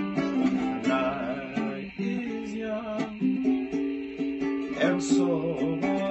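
Solo ukulele playing a slow ballad, with plucked chords and single melody notes ringing on.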